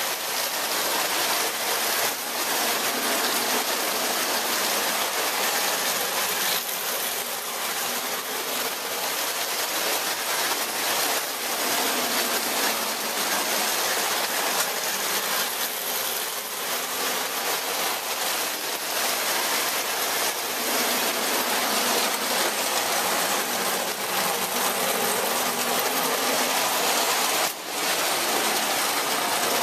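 Several O-gauge three-rail toy trains running on tubular metal track, a steady rolling clatter and motor whir, with one brief drop in level near the end.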